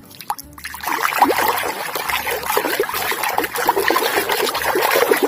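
Water trickling and splashing as a muddy plastic toy animal is rinsed clean, starting about a second in and running on steadily.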